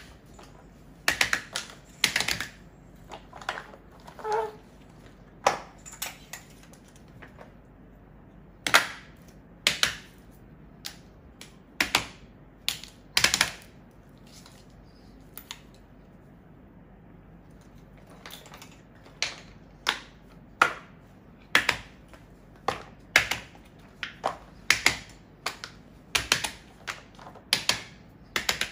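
Irregular sharp taps and clicks as silicone pop-it toys and small objects are set down and moved about on a paper-covered table, with a pause of a few seconds in the middle.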